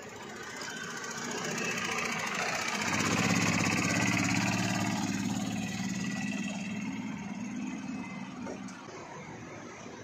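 A go-kart's small engine running, growing louder as the kart passes close by about three seconds in, then fading as it drives away down the track.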